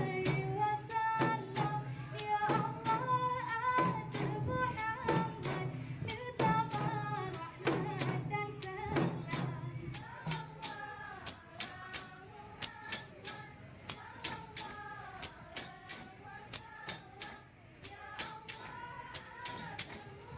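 Background music: a steady percussion beat with a wavering melody line over it; the low accompaniment drops out about halfway through.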